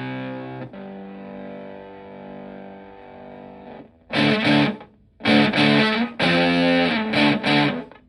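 Fender Stratocaster played through a germanium Fuzzrite fuzz pedal into a Twin Reverb-style amp. A fuzzed chord is struck and left to ring softly. Then, a few seconds later, loud, choppy fuzz chords come in short bursts with brief stops between them.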